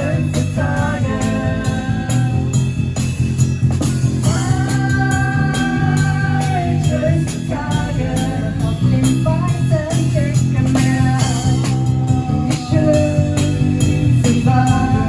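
A small band playing a song: a woman singing long held notes over bass, plucked strings and drums keeping a steady beat.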